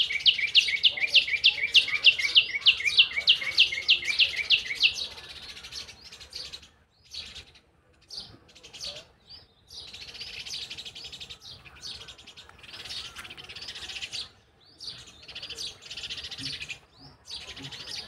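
House sparrows chirping. It opens with one bird close by repeating the same loud note about four times a second for some five seconds. After that, many birds chatter together more faintly, in an overlapping, irregular stream of chirps.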